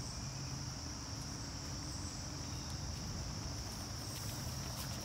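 Insects trilling in one steady, unbroken high-pitched drone, with a low rumble beneath.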